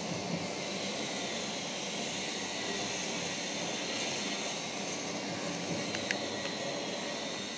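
Electric drive motor of a fully automatic bioclimatic aluminium pergola running steadily as it rotates the roof louvres, with a couple of light clicks about six seconds in.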